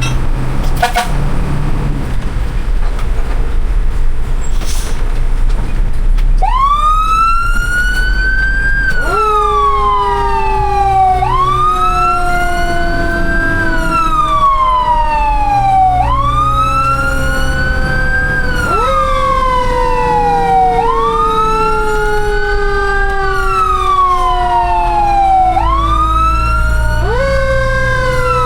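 Fire truck siren wailing, starting about six seconds in, each cycle rising quickly and then sliding slowly back down, about every five seconds, over the low rumble of the truck's engine.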